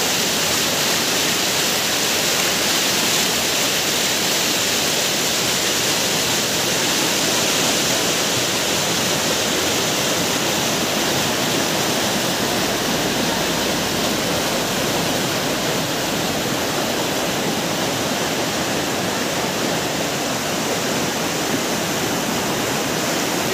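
Fast mountain river rushing over boulders and rapids: a loud, steady rush of white water.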